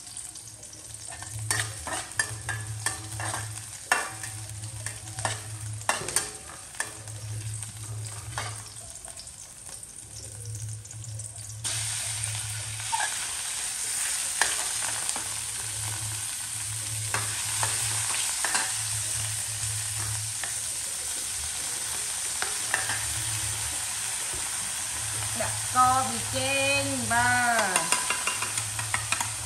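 Metal spatula stirring and scraping food in a steel wok, with scattered clicks and knocks. About twelve seconds in, a steady sizzle of frying starts suddenly, as when meat goes into hot oil, and runs on under the stirring. Near the end a short whine wavers and falls in pitch.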